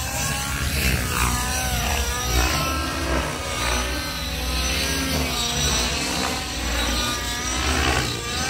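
Radio-controlled helicopter flying aerobatics, its rotor and motor whine rising and falling in pitch again and again.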